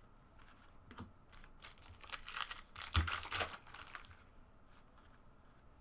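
Trading card pack wrapper tearing and crinkling as a pack is opened by hand. A burst of rustling runs from about two to four seconds in, with a few light clicks before it.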